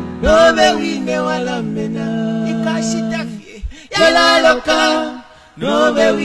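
Church choir singing, holding a long note through the middle, with short breaks about three and a half and five and a half seconds in before the voices come back in.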